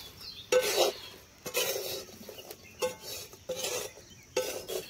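Metal spatula scraping and stirring sugar-coated fried dough sticks around a black kadai, in about six short strokes. The sugar syrup has dried into a white crystalline coating, the finishing stage of khurma.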